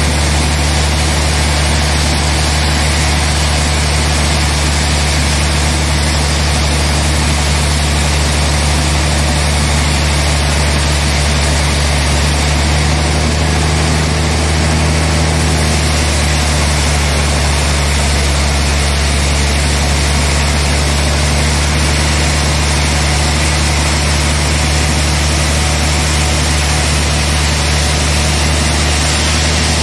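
Large log band sawmill running: a steady, loud machine drone with a low hum and a constant hiss, unchanging throughout.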